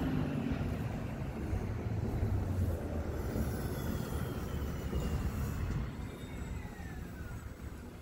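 Street traffic: the low rumble of a passing vehicle, with a faint whine that falls in pitch from about three seconds in until near the end.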